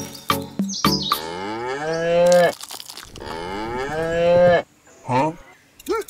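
A cow mooing twice, two long calls of about one and a half seconds each, after a few light clicks at the start. Two short calls come near the end.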